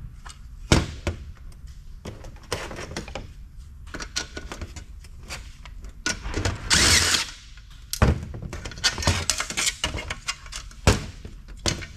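Cordless impact driver running for about a second, about halfway through, driving screws on a sheet-metal housing. Around it, metal parts clank and knock on a steel workbench as they are handled.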